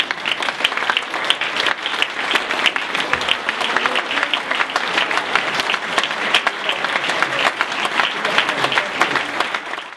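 Audience applauding steadily, a dense patter of many hands clapping that dies away at the very end.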